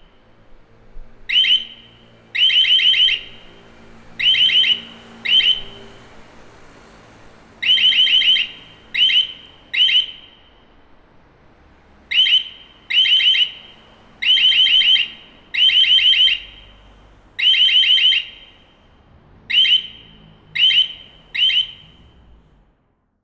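Building alarm sounding in irregular bursts of a high, pulsing tone. Single short blasts alternate with longer runs of rapid pulses, with gaps between them, and the alarm cuts off just before the end.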